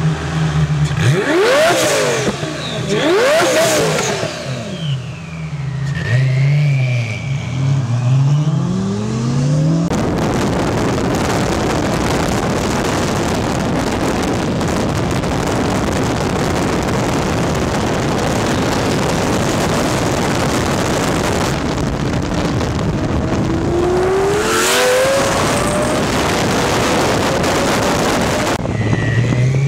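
Underground Racing twin-turbo Lamborghini Gallardo V10 accelerating hard, heard from a pacing car: the engine pitch climbs and falls back at each gear change. Then a long, steady rush of wind and road noise at high speed, and near the end another climbing rev.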